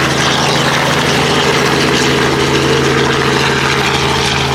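Small helicopter's engine and rotor running steadily: a constant drone with fast, even pulsing.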